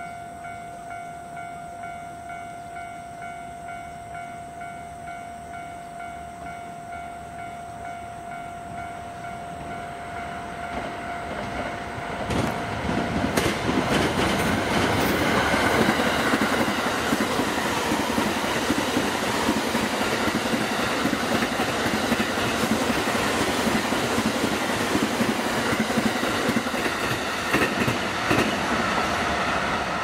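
Level-crossing warning bell ringing in a steady repeated clang. The sound builds as a JR 285 series sleeper train approaches; about twelve seconds in the train arrives and passes close by, its wheels clattering over the rail joints and drowning out the bell.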